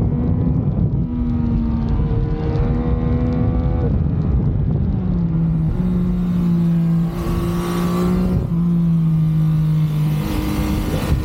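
Yamaha MT-09's inline three-cylinder engine and exhaust under way, its pitch climbing slowly and then stepping down at gear changes around four, eight and a half and ten seconds in. Wind rush joins from about six seconds in as speed builds.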